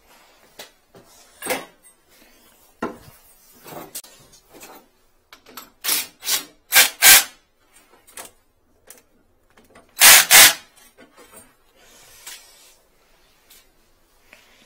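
Rubbing and scraping of a flexible-shaft drain-cleaning machine and its cable drum being handled and set down on a tiled floor: a series of short rasping scrapes, the loudest a pair about ten seconds in.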